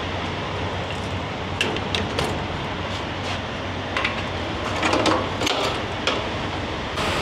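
Diesel engine idling steadily, with several scattered clicks and knocks about two, four and five seconds in.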